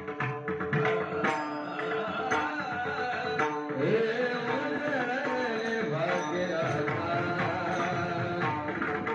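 Varkari kirtan singing: a man's voice holds long notes that glide up and down, accompanied by small hand cymbals and percussion strokes. The strokes are densest in the first couple of seconds.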